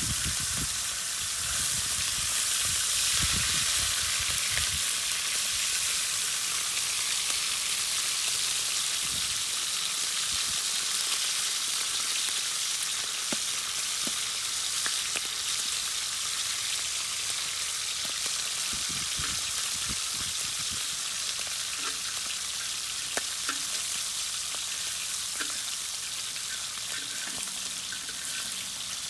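Bacon sizzling and frying in a hot pan over a wood-fired rocket stove: a steady hiss with scattered small pops.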